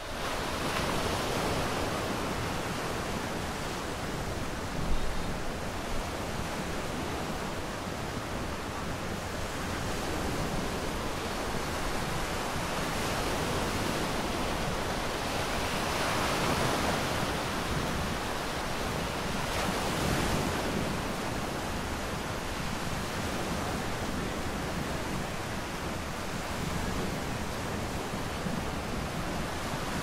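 Small ocean waves breaking and washing up a sandy beach: a steady surf wash that swells every few seconds, with some wind on the microphone. A short thump about five seconds in.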